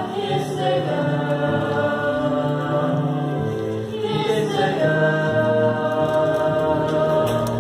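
A small group of young mixed voices singing together in harmony, with a long held chord through the second half.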